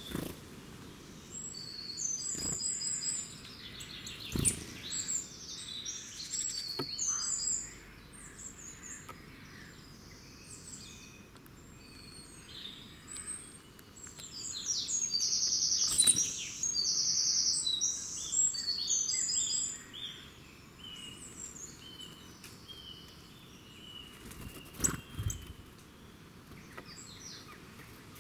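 Several songbirds singing, with bursts of fast, high trilled phrases about two to seven seconds in and again about fifteen to twenty seconds in. A few brief sharp knocks come through.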